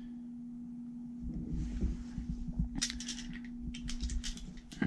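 Light clicks and rustling of hand and tool handling over a steady low hum, the clicks starting about a second and a half in.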